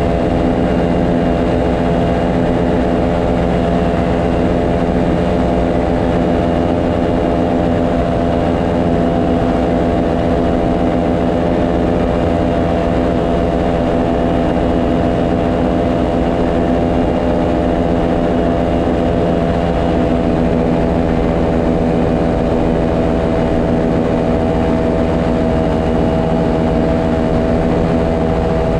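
Paramotor engine and propeller running steadily in flight, a constant loud drone with one of its tones growing a little stronger about twenty seconds in.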